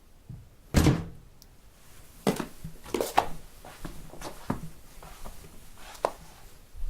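Footsteps in home slippers: a heavy thud about a second in, a light click, then about half a dozen uneven soft steps.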